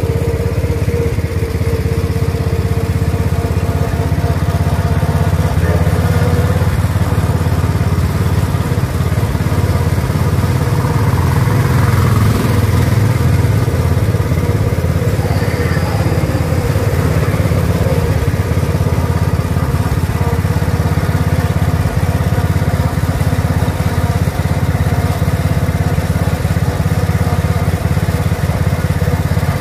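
Small gasoline engine of a guided ride car running steadily as the car drives slowly along its track.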